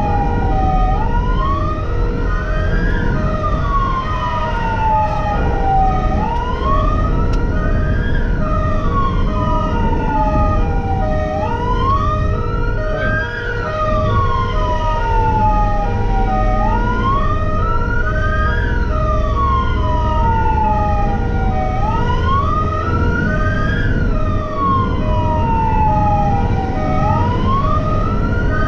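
Emergency siren of a fire-rescue vehicle wailing, heard from inside its cab: each cycle rises quickly and falls more slowly, repeating about every five seconds. A second tone pulses about twice a second underneath, over steady engine and road noise.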